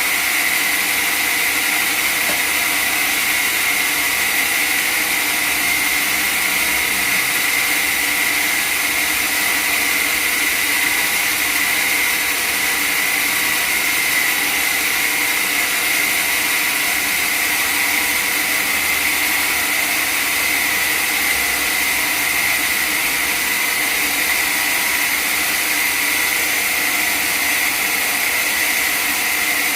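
Sawmill machinery running steadily: a constant mechanical whir with a high-pitched hum, unchanging throughout.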